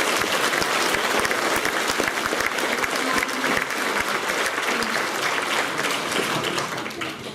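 An audience of schoolchildren and adults applauding, a steady round of clapping that fades out near the end.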